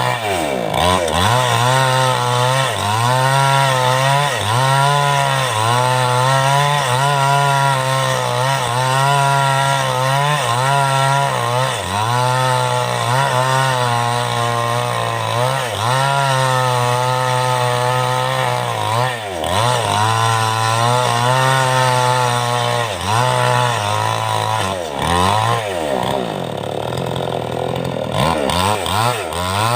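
Type 5800 two-stroke chainsaw with a 22-inch bar ripping lengthwise through a teak log. The engine runs continuously, its pitch wavering up and down as the chain loads in the cut, with several sharp dips mostly in the second half.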